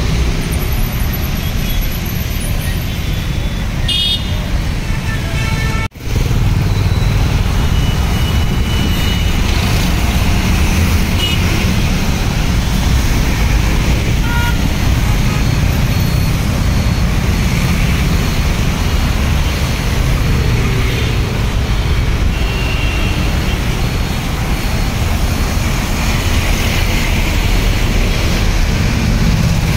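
Road traffic on a rain-wet road: a steady rumble of car, auto-rickshaw and motorbike engines and tyres, with a few short horn toots.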